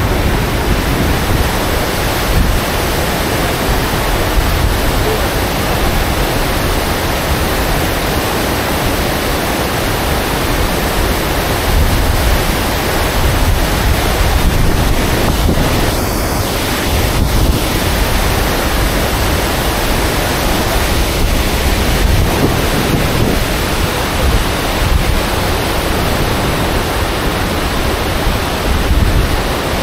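Gullfoss waterfall and the rapids above it: a steady, loud rush of white water.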